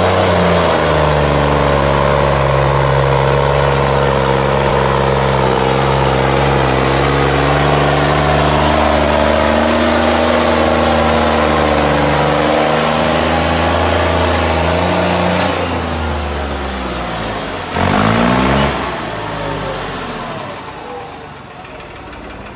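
New Holland 3630 tractor's three-cylinder diesel engine running steadily under load as it pulls a loaded trailer past, for about fifteen seconds. The engine note then drops and fades, with a short rev lasting about a second near the end before it trails off.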